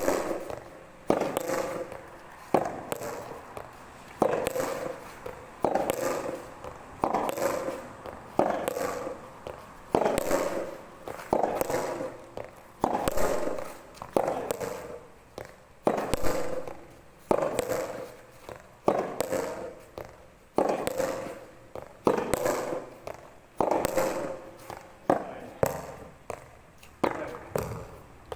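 Soft tennis rubber balls struck back and forth by rackets in a rally, a hollow hit with a short ring about every second and a half, some hits louder than others.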